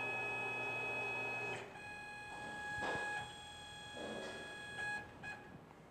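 Tormach CNC lathe running, its motors giving a steady multi-tone whine over a low hum as the indexable drill is fed back in toward the bore. About a second and a half in the whine changes pitch and turns quieter, a few short noisy bursts follow, and the whine stops near the end.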